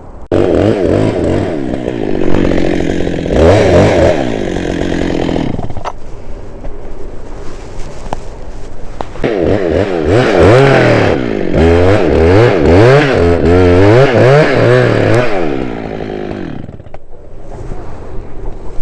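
Chainsaw engine running in two loud spells, its pitch rising and falling repeatedly as it is revved. It starts suddenly near the beginning, eases off to a lower steady run in the middle, and revs hard again for several seconds before dropping back near the end.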